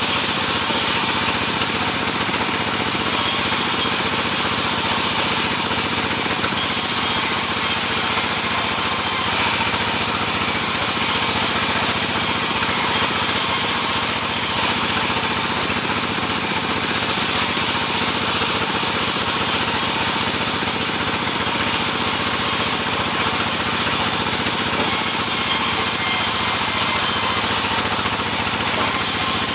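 Sawmill saw and its motor running steadily while sawing sengon (albizia) wood. A high hiss on top comes and goes every few seconds.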